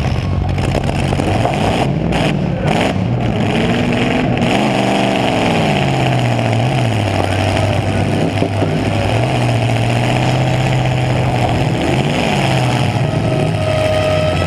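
1990 Chevy Caprice Estate Wagon's V8 engine running, heard from inside the car, revving up and back down, most clearly about four to six seconds in and again near twelve seconds.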